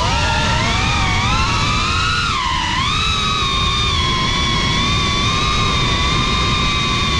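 Brushless motors and propellers of a GEPRC Cinelog 35 FPV cinewhoop quadcopter whining in flight, the pitch sliding up and down with the throttle, dipping about two and a half seconds in, then holding steady. A low rushing noise runs underneath.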